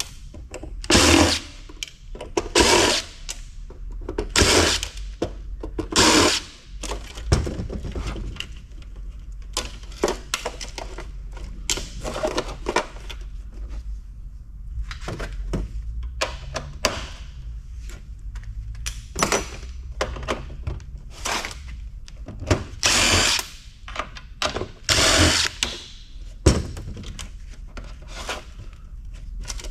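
Power drill-driver running in repeated short bursts, with metal clunks and clicks between them.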